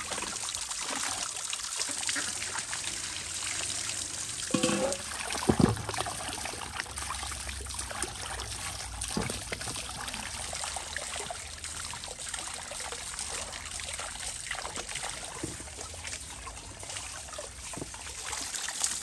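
Running water trickling and splashing as potatoes are rubbed clean by hand under it, with a few knocks about five seconds in.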